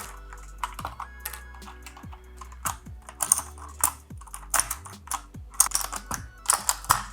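Irregular plastic clicks and clatter from an Akko 3068 mechanical keyboard being taken apart by hand, over quiet background music.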